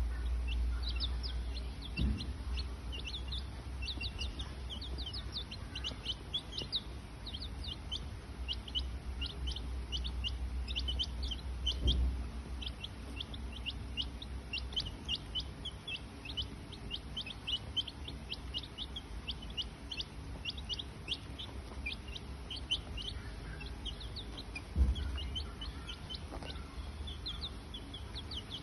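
Rapid high-pitched peeping calls, several a second, over a low rumble, with a few dull thumps about 2, 12 and 25 seconds in.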